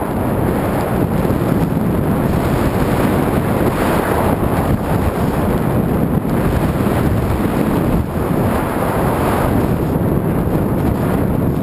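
Loud, steady rush of wind buffeting the helmet camera's microphone, mixed with the snowboard hissing through deep powder as the rider goes at speed.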